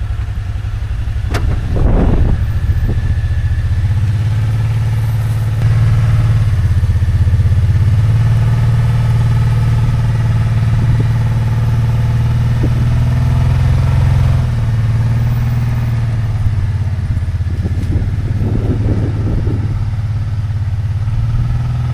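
Side-by-side UTV engine running steadily as it pulls a plow through a potato row. It gets louder about two seconds in and again about six seconds in, then eases off around fourteen seconds.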